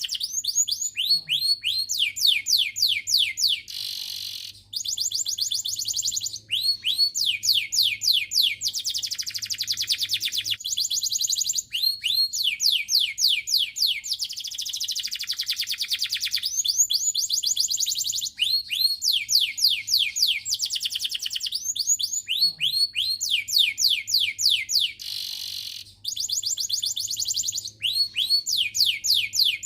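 Domestic canary singing a long, fast song: phrases of rapidly repeated sweeping notes and rolling trills, a few seconds each, with brief breaks between them.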